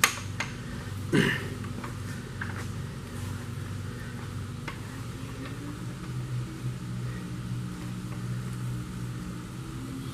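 Metal tools knocking against an engine block while main bearing caps are worked loose: a sharp clank at the start and another about a second in, then a few light clicks, over a steady low hum.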